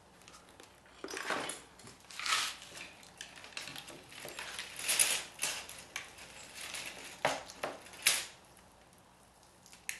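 Scrap metal pieces being handled: irregular clinks and clatter with rustling, and a few sharper knocks, the loudest about halfway through and again near the end.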